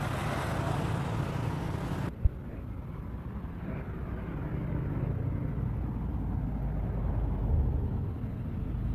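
Steady low outdoor rumble. A brighter hiss stops abruptly at a cut about two seconds in, followed just after by a single sharp click.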